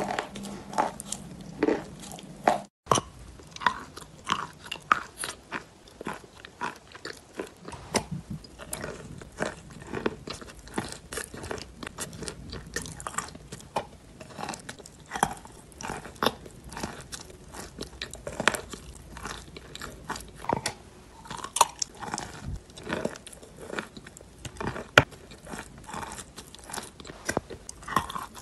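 Close-up biting and chewing of wet chalk paste: a steady run of crisp crunches and sharp clicks from the mouth, with a brief break about three seconds in.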